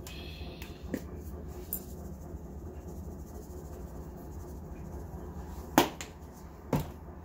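A few sharp plastic clicks from a spice bottle's red flip-top shaker cap being handled, the loudest two near the end, over a steady low hum.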